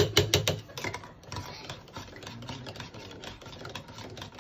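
Can opener working around the rim of a can of cream, giving a quick, even run of clicks, about six a second, that stops under a second in. Fainter, irregular clicks and metal scraping follow as the cut lid is worked loose.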